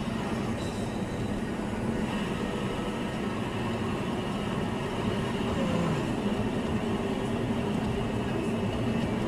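Steady running noise of a moving road vehicle, a mix of engine and tyre rumble, as picked up by a dash cam inside the car.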